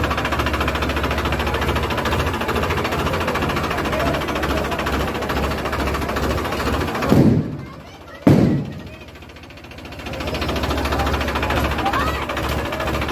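Farmtrac tractor's diesel engine running at low speed, a steady low hum, with people talking around it. Two heavy thumps come about seven and eight seconds in, and the engine sound drops away for a couple of seconds after them.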